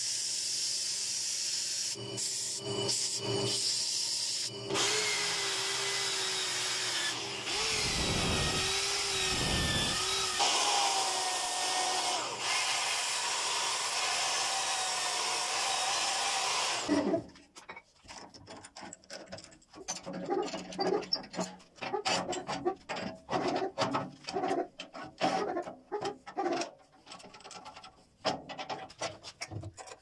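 Wood lathe running while a power drill with a sanding disc sands the spinning bird cherry workpiece: a steady hiss of abrasive on wood under the drill motor's whine, which shifts in pitch. About 17 seconds in it stops abruptly, giving way to quieter, irregular scraping and knocking.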